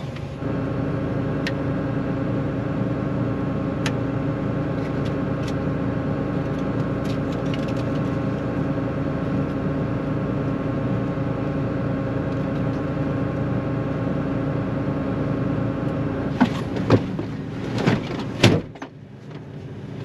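John Deere 9500 combine running steadily at a constant pitch, heard from inside its cab. Near the end come several knocks and a clunk as the cab door is shut, after which the machine sounds much quieter.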